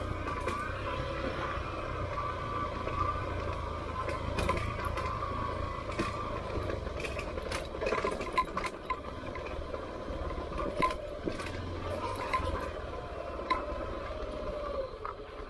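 Honda XR150 single-cylinder dirt bike engine running steadily while the bike descends a steep, rocky dirt track, with frequent clicks and rattles from loose stones and the bike's parts.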